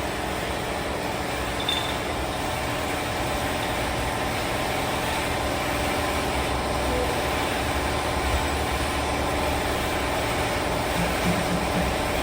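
A steady mechanical drone, like an engine running at idle, continuing without a break.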